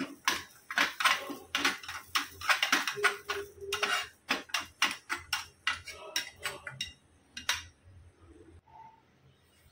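Metal spoon stirring a tadka of hot oil and spices in a small steel tempering pan, clinking and scraping against the pan about three or four strokes a second. The strokes stop about seven and a half seconds in.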